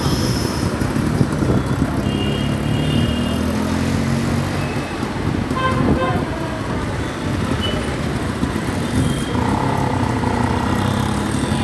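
Slow, dense city traffic heard from a moving motorcycle: a steady engine and road rumble with wind buffeting, and several short horn toots from vehicles around it, one longer near the end.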